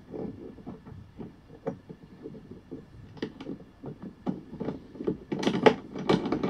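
Irregular clicks, knocks and light rattles of plastic and metal lawnmower handle parts being handled and fitted together, getting busier and louder over the last second or so.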